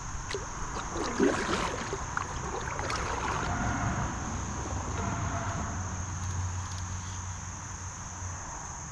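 A steady high buzz of insects, with handling noise from close by: a few knocks in the first second or so, then a haze of rustling or water noise and a low hum.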